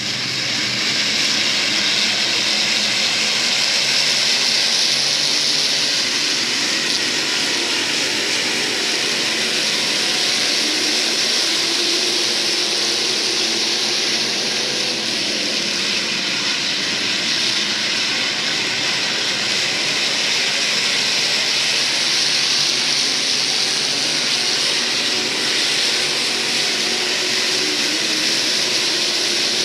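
A field of IMCA SportMod stock cars racing, their V8 engines running hard together in a steady, loud, continuous mass of engine noise.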